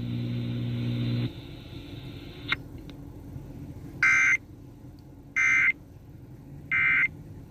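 Radio playing an Emergency Alert System message's end: a buzzy drone that cuts off about a second in, then three short screeching data bursts, the end-of-message code that closes the severe thunderstorm warning.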